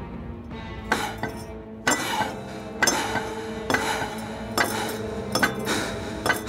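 Traditional Chinese medicine roller grinder: a metal wheel rolled back and forth in its trough. It gives a clank and scrape about once a second, starting about a second in, over quiet background music.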